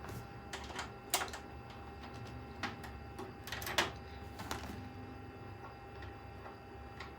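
Irregular small clicks and taps of screws, a screwdriver and metal parts being handled on a PC case, with two louder knocks about a second in and near four seconds in.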